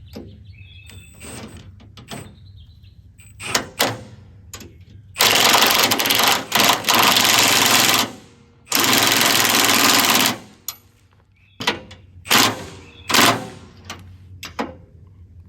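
A handheld power tool run in two bursts, about three seconds and then about a second and a half, used on the brush hog's steel mount. Sharp metal clanks of tools and parts come before and after.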